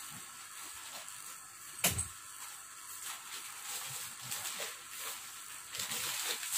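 Plastic mailer bag rustling and crinkling as it is handled and opened, with one sharp snap about two seconds in and a louder burst of crinkling near the end.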